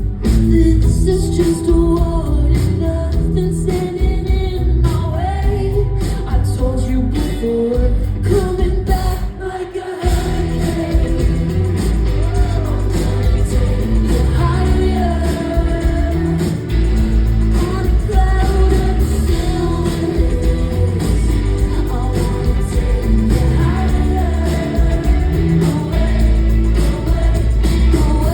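A live band playing a pop song with a woman singing the lead over a heavy, steady bass. The bass drops out briefly about ten seconds in, then the full band comes back.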